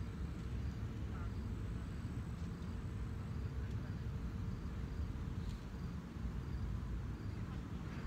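Outdoor ambience: a steady low rumble, with faint insect chirps repeating about twice a second.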